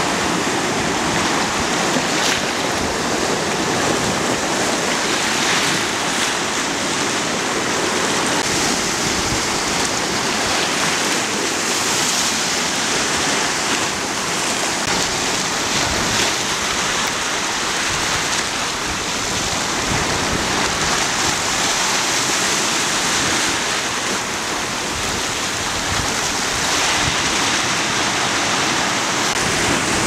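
Mediterranean surf: small waves breaking and washing foam up the shore and over a flat rock shelf, a steady rushing with no pause.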